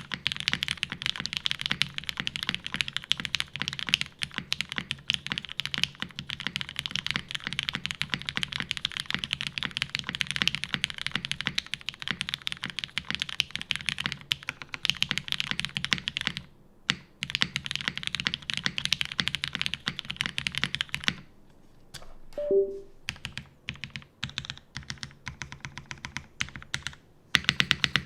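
Fast, continuous typing on a custom mechanical keyboard with an aluminum plate, lubed Hyperglide switches and GMK keycaps. The typing pauses about three quarters of the way through, where a short falling two-note blip sounds, then resumes more sparsely.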